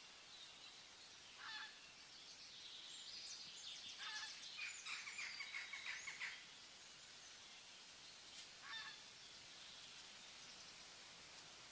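Faint bird calls over a quiet outdoor background: a short call about a second and a half in and another near nine seconds, with a burst of chattering calls from about three to six seconds in.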